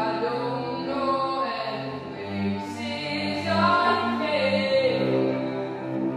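A woman sings a slow melody with long held notes, accompanied by a bowed cello.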